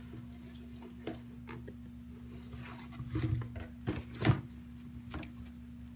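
Packaging being handled: scattered knocks and rustles of cardboard boxes and shrink-wrapped items being moved and set down, busiest in the middle with the loudest knock a little after four seconds, over a steady low hum.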